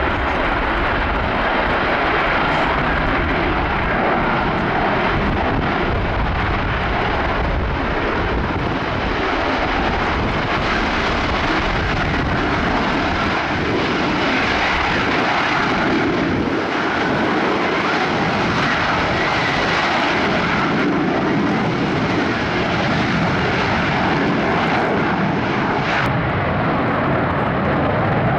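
Military fast jet flying a display, its jet engine noise loud and steady without a break.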